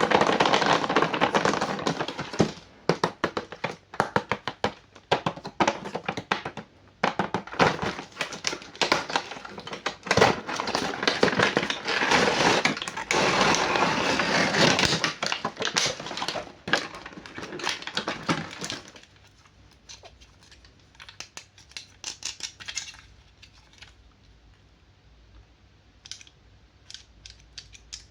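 Packaging being handled and opened: dense crackling, crinkling and rapid clicking for most of the first twenty seconds, then only scattered clicks near the end.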